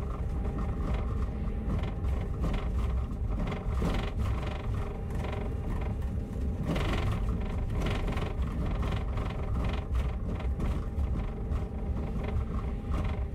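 Interior of a moving bus: the engine runs with a steady low rumble and a faint whir, while the cabin fittings keep up a loose rattling and clicking.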